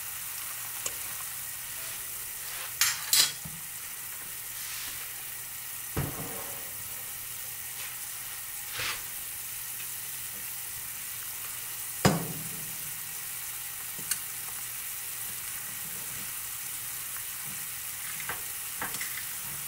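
Pot of chicken soup at a rolling boil, a steady bubbling hiss. A few sharp clinks and knocks cut through it, the loudest about twelve seconds in.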